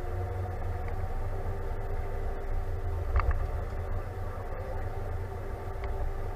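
John Deere tractor's diesel engine running steadily under way, heard inside the cab as a low drone with a steady hum, with a brief rattle about three seconds in.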